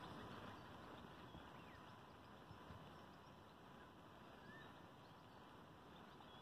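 Near silence: faint outdoor ambience over a still estuary, with a few faint, brief chirps.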